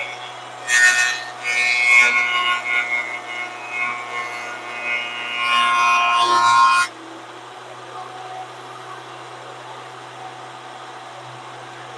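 VEVOR 13-inch benchtop thickness planer taking a pass on a board. The loud cutting noise of the cutterhead starts about a second in and cuts off suddenly about seven seconds in as the board clears the cutterhead. The motor keeps running unloaded with a steadier, quieter hum.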